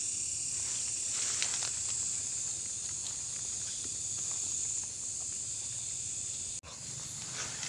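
Steady high-pitched chorus of night insects such as crickets, with a few faint rustles and scrapes about a second in. It drops out for an instant near the end.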